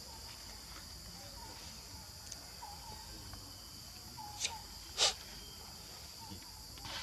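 Steady high-pitched drone of insects, with faint short chirps every second or so. Two brief hissy bursts come about four and a half and five seconds in, the second the loudest.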